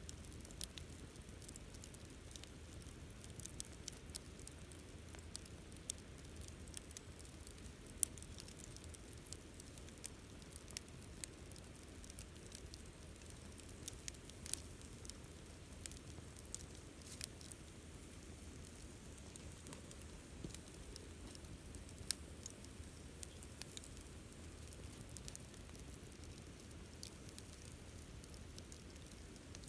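Campfire crackling: irregular sharp pops and snaps, a few louder than the rest, over a soft low rumble of burning.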